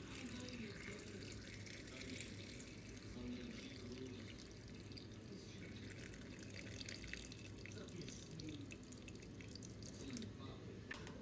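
Boiling water poured from a kettle into a Thermomix's steel mixing bowl onto sliced carrots: a steady splashing pour that stops near the end.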